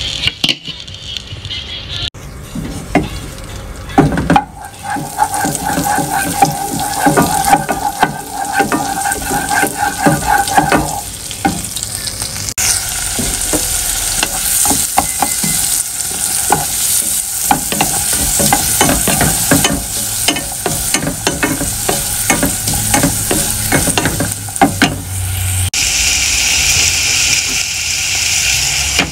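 Diced onion frying and sizzling in butter in a saucepan, stirred with a wooden spatula that scrapes and knocks against the pan. The sizzle grows brighter near the end.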